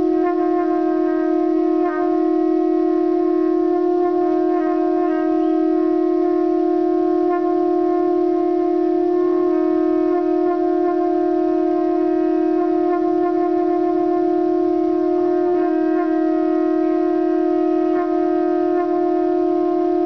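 Two conch shells (shankh) blown together, sounding one long, steady horn-like note that is held without a break.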